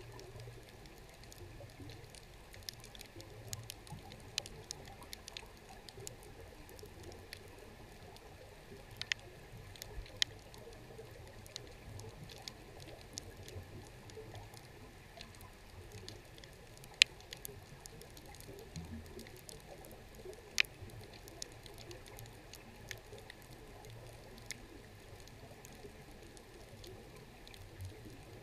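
Underwater ambience recorded at a shipwreck: a steady scatter of sharp, irregular clicks and crackles over a faint low rumble, with a few louder clicks standing out.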